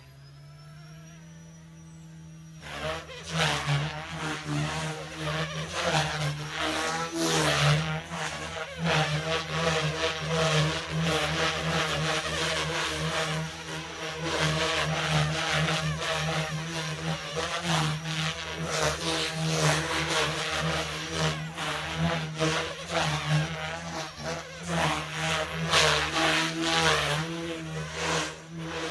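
Goosky S2 electric RC helicopter. A steady hum for the first two and a half seconds, then louder motor and rotor noise that keeps wavering up and down in pitch as it flies.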